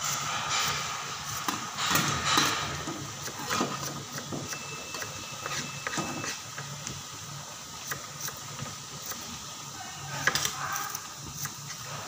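Chopped Sumenep shallots deep-frying in a large wok of oil, the oil bubbling and crackling, with a metal spatula scraping and knocking against the wok as they are stirred; the loudest knocks come in the first couple of seconds and again around ten seconds in.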